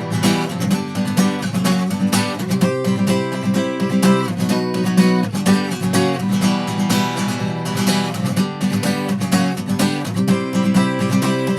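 Acoustic guitar strummed in a steady rhythm, an instrumental passage of chords between sung verses.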